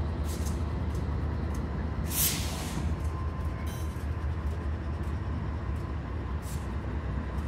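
Diesel-electric locomotives rumbling steadily as a Norfolk Southern locomotive rolls slowly past at low speed. A short hiss of air comes about two seconds in.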